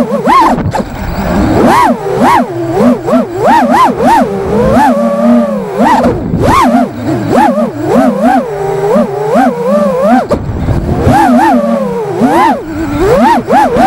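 FPV racing quadcopter's brushless motors and propellers whining, the pitch swooping up and down again and again as the throttle is punched and chopped through flips and dives.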